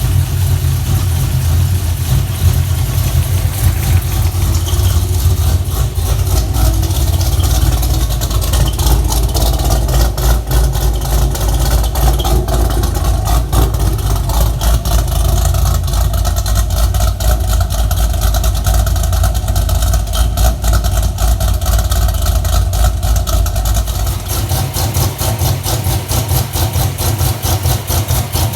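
Freshly built, untuned 6.0-litre LS2 V8 running at idle just after its first start. It is steady and pulsing with a deep rumble, which lightens about four seconds before the end.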